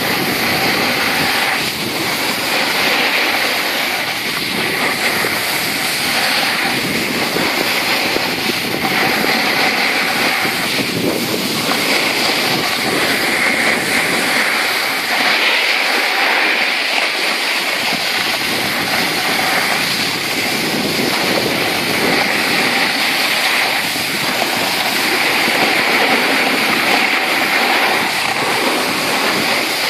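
Continuous rushing noise of riding down a groomed ski slope: wind buffeting the microphone and the hiss of sliding over packed snow, steady throughout.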